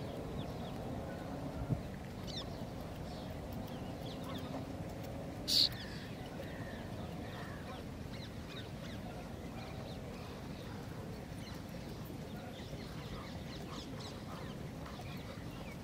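Steady wind noise buffeting the microphone, with faint scattered bird calls and one sharp, high-pitched call about five and a half seconds in.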